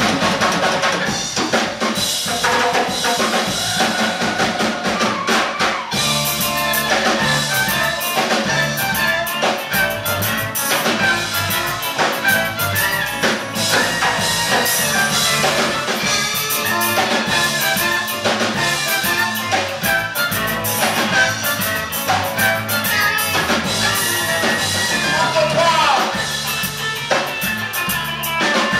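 Live rock band playing on stage: drum kit with saxophone and violin over electric guitar. The band gets fuller in the low end about six seconds in.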